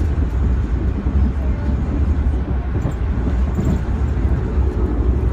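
Steady low rumble of a moving Amtrak passenger train, heard from inside the coach.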